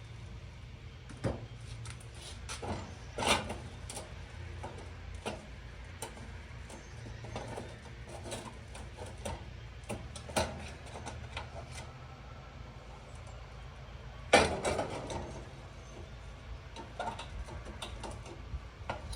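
Scattered clicks and knocks of an old metal stove and its parts being handled, with one louder knock about fourteen seconds in, over a steady low hum.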